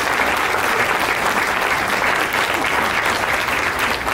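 Audience applauding steadily, a dense patter of many hands clapping at the close of a talk.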